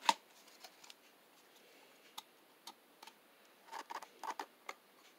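Plastic clicks and light knocks from a small battery-powered desk fan being handled and its head tilted on its pivot: one sharp click at the start, a few scattered ticks, then a quick cluster of clicks about four seconds in. The fan is not running.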